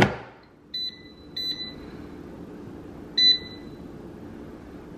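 Gourmia air fryer's basket clicking shut, then its touch-control panel giving three short electronic beeps as the temperature and time buttons are pressed, over a low steady hum.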